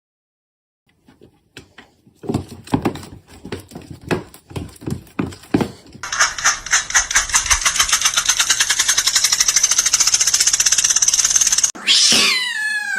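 A cat meowing with a loud yowl that falls in pitch near the end. Before it come a series of irregular knocks and then a fast, rattling run of pulses for several seconds.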